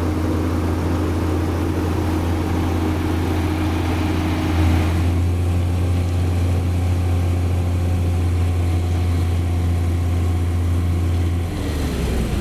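Heavy diesel engines running steadily with a deep, low drone. The sound shifts abruptly about five seconds in and again near the end.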